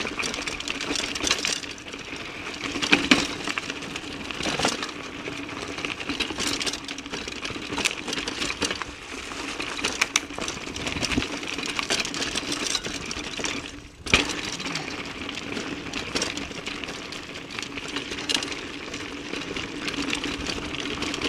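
Mountain bike rolling downhill on a rutted dirt trail, heard from a handlebar-mounted camera: steady tyre and wind noise with frequent rattles and clicks from the bike over bumps, and one sharp knock about two-thirds of the way through.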